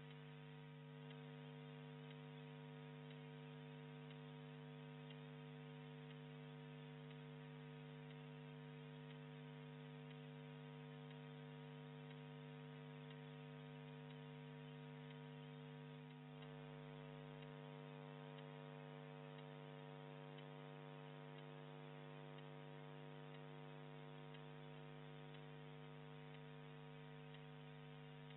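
Near silence apart from a steady electrical hum made of many even tones, with a brief dip about sixteen seconds in.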